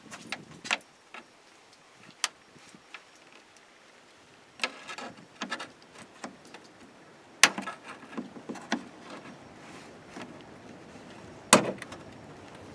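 Scattered sharp plastic clicks and snaps as push-in retainer plugs are pried out of a Toyota Tundra's plastic grille cover. There are a few small clicks, a short cluster, and two louder snaps, one near the middle and one near the end.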